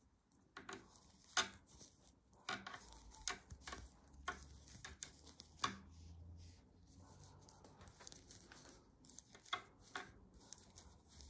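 Metal knitting needles clicking and tapping faintly and irregularly as stitches are knitted.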